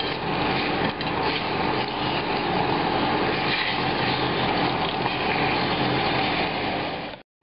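Shin beef sizzling steadily as it browns in hot oil in a stainless steel pot, with a spatula turning it against the pot. The sizzle cuts off suddenly near the end.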